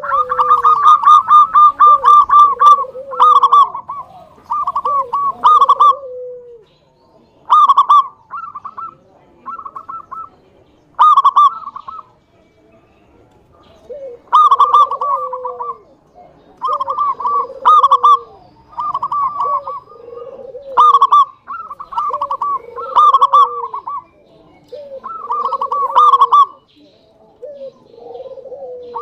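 Zebra dove (local perkutut) cooing in repeated phrases, each a quick run of clipped notes over a lower falling coo. The phrases come every one to two seconds, with a couple of longer pauses.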